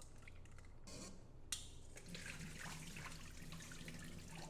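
Faint water from a tap running and splashing into a stainless steel sink as boiled somyeon noodles in a mesh strainer are rinsed in cold water, with two light knocks of the strainer about a second in.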